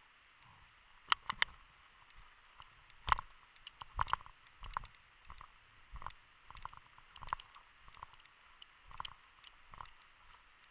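Footsteps and rustling of a person walking through tall dry grass and undergrowth, with irregular clicks and knocks from their gear, about one or two a second.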